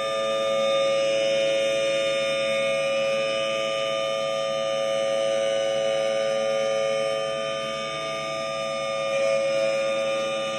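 Federal Signal Thunderbolt 1000T outdoor warning siren sounding at a steady, held pitch, with two close tones sounding together. Its loudness swells and fades slowly.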